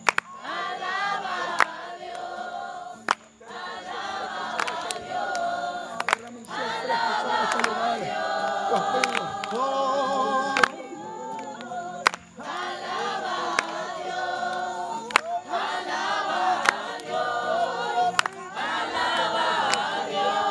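A group of voices singing together, several voices overlapping, with sharp clicks scattered irregularly through the singing.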